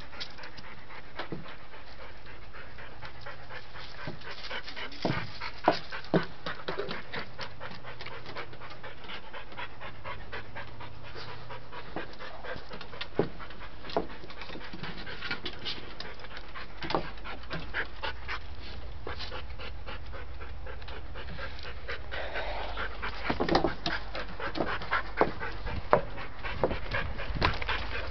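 A dog panting steadily, with scattered clicks and a few sharper knocks. It gets busier and louder with scuffling in the last several seconds.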